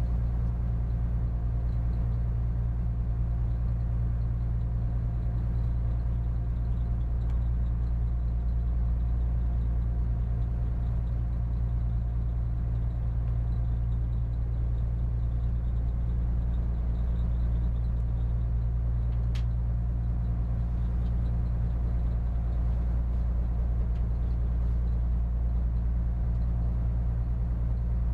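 Steady low drone of a spits barge's diesel engine running at constant speed while under way.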